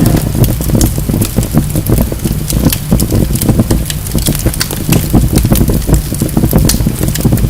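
Wood fire burning in a fireplace: dense crackling and popping of logs over a steady low rumble of the flames.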